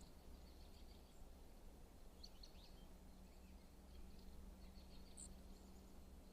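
Faint, scattered chirps of backyard songbirds, a small cluster about two seconds in and a single higher note near the end, over a steady low hum.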